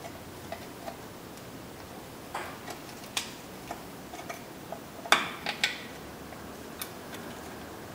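Small screwdriver prying at a little metal clip on a pin in a drum brake shoe assembly, making scattered sharp metallic clicks and ticks, the loudest cluster about five seconds in.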